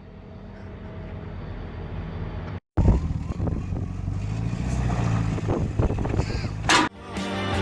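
Engine of harvest machinery running, heard in two short clips separated by a sudden cut. The first is quieter and grows louder; the second is louder, with a low engine hum and some clattering knocks.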